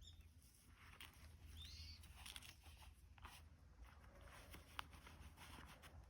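Near silence: faint outdoor ambience with a low steady hum, a few soft scattered clicks and one short high chirp about a second and a half in.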